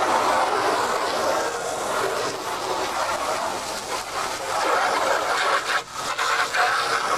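Garden hose jet spattering water onto a plastic motorcycle fairing panel, rinsing degreaser off it: a steady rush of spray. It drops out briefly just before the six-second mark, when the jet comes off the panel, then resumes.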